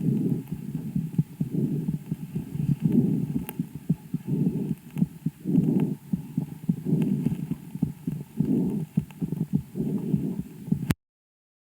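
A calf's breath sounds picked up through a homemade stethoscope microphone on the left side of the chest, the side where lung ultrasound found no lesion. Low breath noise swells and fades with each breath, about once a second, with scattered faint clicks, and cuts off suddenly near the end.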